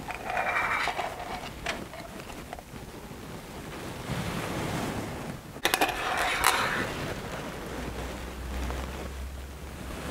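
Steel palette knife scooping thick oil paint out of metal paint tins, with scraping in two bursts, one at the start and one about six seconds in. The second burst carries a few sharp metallic clicks of the blade knocking against a tin.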